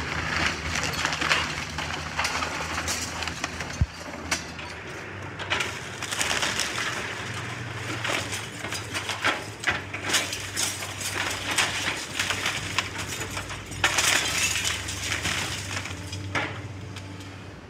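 Hydraulic excavator demolishing a wood-frame house: the machine's engine drones steadily underneath while its bucket and arm break into the structure, with repeated cracking and splintering of timber, crashes of falling debris and breaking glass.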